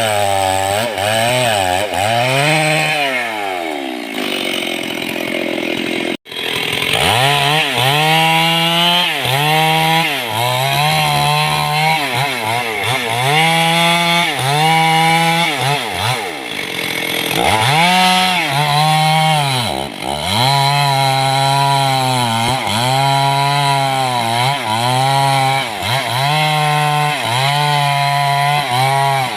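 Stihl two-stroke chainsaw cutting into a mahogany trunk. Its engine speed sags again and again under load in the cut and picks back up, in a repeating rise and fall. The sound drops out for an instant about six seconds in.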